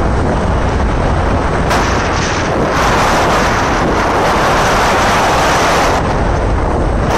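Wind buffeting a phone's microphone while riding a two-wheeler at road speed: a loud, steady rush with a heavy low rumble. It grows louder about three seconds in and eases back near six seconds.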